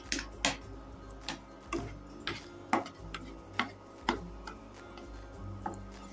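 Metal spoon clinking against a steel vessel while ghee is spooned into the pan: about ten sharp taps at uneven intervals, roughly two a second.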